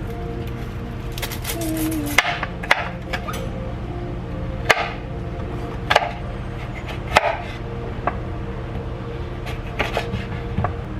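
A series of sharp knocks and clacks, hard objects striking something, every second or two over a steady low hum.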